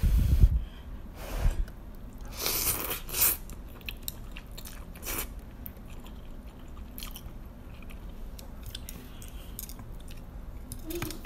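A person eating noodle soup with chopsticks and a spoon: slurping noodles in hissy bursts and chewing, with scattered small clicks of the utensils. A brief loud low rumble comes right at the start.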